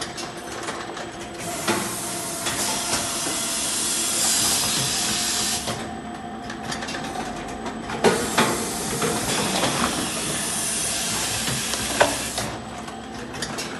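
Automatic bag-filling and packaging machine running: a steady hissing that cuts off for a moment twice, about every six seconds, with a few sharp mechanical knocks as it cycles.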